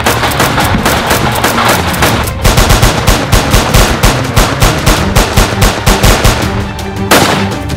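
Rapid automatic gunfire sound effect, many shots a second, laid over action background music with a steady beat; the shots are heaviest in the middle and thin out near the end.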